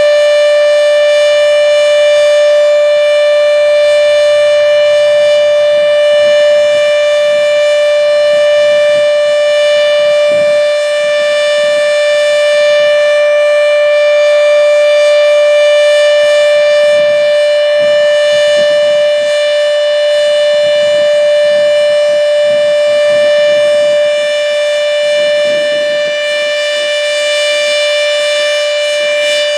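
H.O.R. Siro Drone electronic warning siren sounding the steady Alert test signal: one loud, unbroken tone held at a constant pitch.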